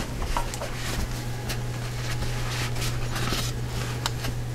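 Cloth towel wiping flour off the rim of a stainless-steel pressure cooker pot: faint, scattered rubbing swishes over a steady low hum.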